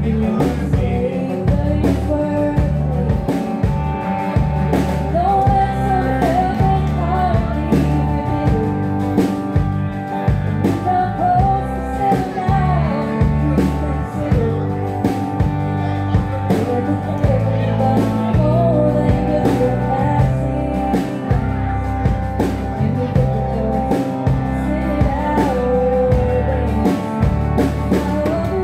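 A rock band playing a song with a steady drum beat, bass and electric guitar, and a singer carrying the melody throughout.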